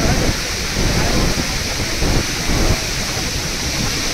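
Floodwater churning through rapids in a swollen river: a steady rushing noise with an uneven low rumble beneath it.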